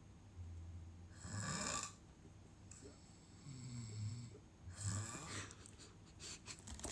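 A sleeper snoring: a low snore, then a breathy, hissing breath, twice over.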